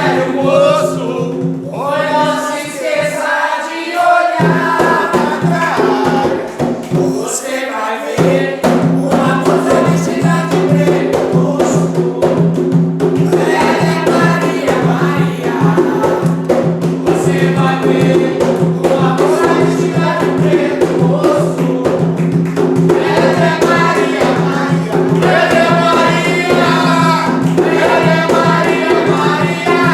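A group singing an Umbanda ponto (devotional chant) together, accompanied by steady percussion.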